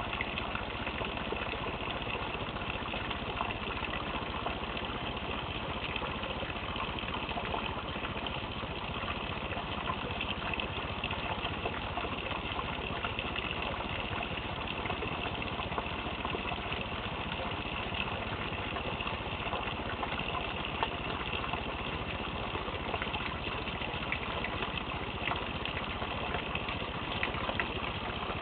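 Steady rain during a thunderstorm: a constant dense hiss with many small scattered drop ticks.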